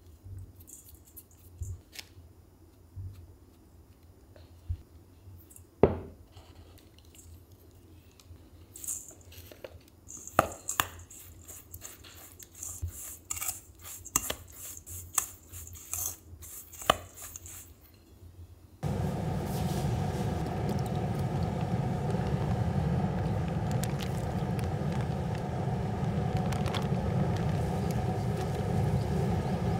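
A metal ladle stirring and scraping a dry seasoning mix in a stainless steel mixing bowl, with clinks and taps of metal on metal. About two-thirds of the way through it gives way to a much louder, steady rumble with a low hum.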